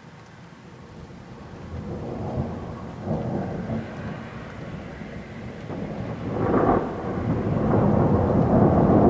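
Rolling thunder from a thunderstorm, rumbling and building from faint to loud. It swells about three seconds in and again about six and a half seconds in, and is loudest over the last couple of seconds.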